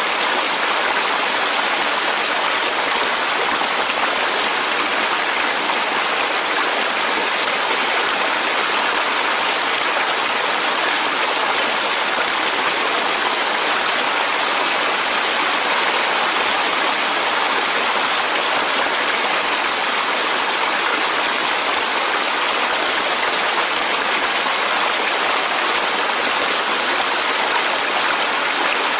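Clear mountain stream (valley brook) flowing over rocks, a steady rushing and babbling of water with no change.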